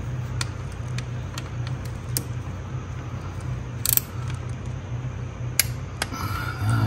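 Scattered metallic clicks and clinks of a socket, extension and wrench being handled and fitted onto the steel bolts of a transmission solenoid pack, two of them sharper about four and five and a half seconds in, over a steady low hum.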